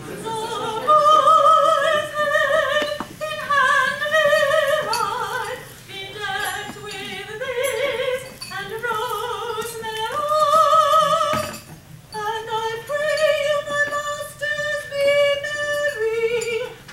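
Choir singing in harmony, a high female voice on top carrying the melody with vibrato on long held notes. The phrase breaks off briefly about two thirds of the way in before the singing resumes.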